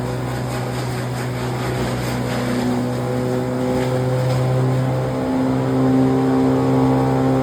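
Engine of a trailer-mounted chain-plate branch shredder running steadily under power, its hum shifting slightly in pitch and growing a little louder about five seconds in.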